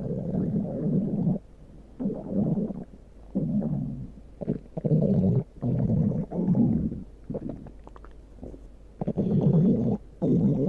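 Stomach growling: a string of low rumbles, each about a second long, with short pauses between them.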